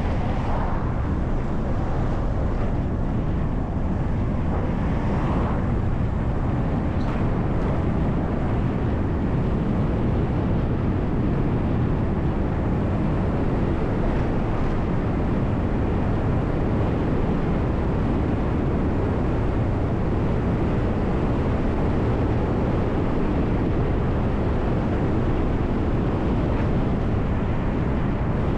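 City bus driving along a road: a steady low rumble of engine and tyre noise.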